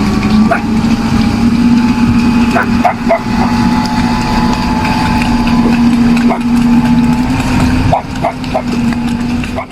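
Sherp ATV's diesel engine running at a steady drone, with several short sharp yips over it.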